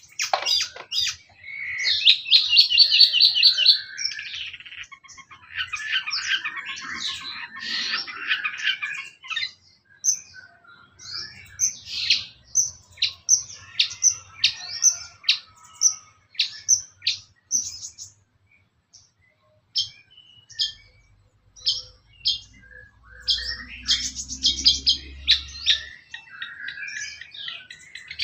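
Long-tailed shrike (cendet) singing: rapid chattering phrases, then a run of short, sharp, repeated call notes, with a brief pause about two-thirds of the way through.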